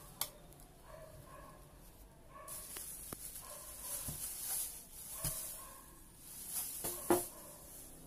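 Plastic packaging wrap crinkling as it is handled, with a few sharp knocks, the loudest about seven seconds in. Behind it a dog yips and barks repeatedly.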